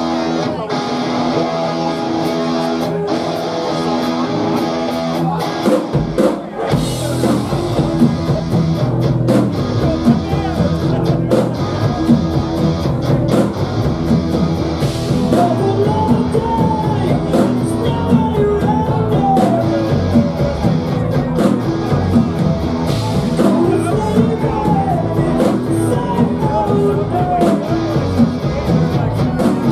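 Live rock band: an electric guitar plays alone at first, then drum kit and bass guitar come in together about six seconds in. A voice starts singing over the band about halfway through.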